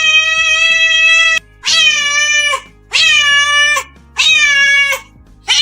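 A cat giving a run of long, loud, drawn-out meows, one after another about every second and a half, each dropping in pitch at its end, over quiet background music.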